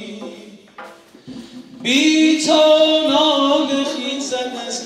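Music carried by a singing voice holding long notes. It falls away to a brief lull about a second in and comes back loud near two seconds.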